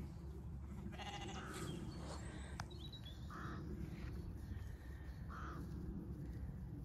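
Zwartbles sheep bleating faintly a few times, short separate calls over a steady low rumble.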